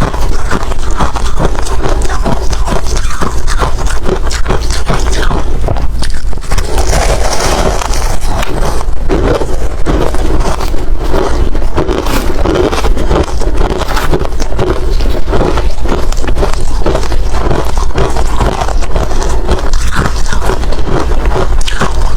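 Hard ice being bitten and chewed close to the microphone: a continuous stream of loud, crackling crunches.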